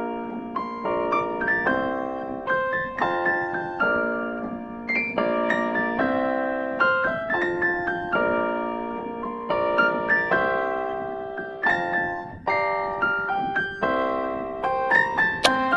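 Background piano music: chords and melody notes struck and left to ring and fade.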